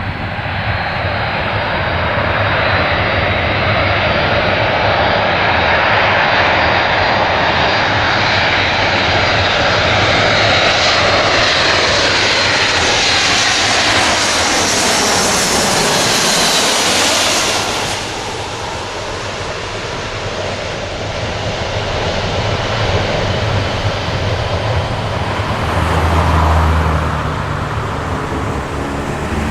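Boeing C-17A Globemaster III's four turbofan jet engines passing close on a landing approach: a loud jet noise that builds, with a high whine falling in pitch as it goes by, drops off suddenly about two-thirds of the way through, then swells again with a deep rumble near the end.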